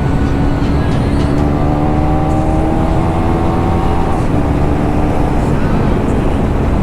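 KTM Duke 390's single-cylinder engine running under way through an exhaust with the dB killer removed, its pitch climbing slowly as the bike gathers speed, then holding steady about halfway through, over a constant rush of riding wind.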